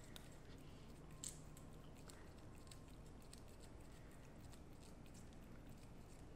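Near silence: faint room tone with scattered small clicks, one sharper click a little over a second in.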